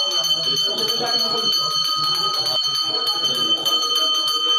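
Temple bell rung rapidly and without pause during an aarti, its quick strokes blending into a steady ringing tone.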